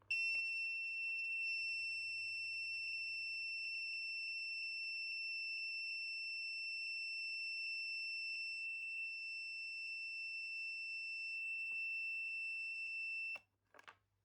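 In-car monitor's speaker giving out a steady high-pitched whine that cuts off suddenly near the end. It is the fault noise of a monitor with a burst electrolytic capacitor.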